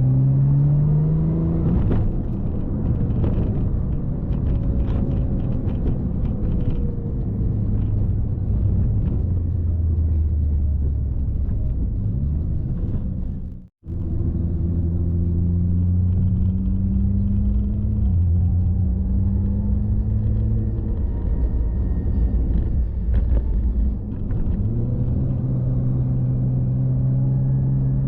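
Car engine and road rumble while driving. The engine note climbs under acceleration at the start and again near the end, and holds steady in between. The sound cuts out for a moment about halfway through.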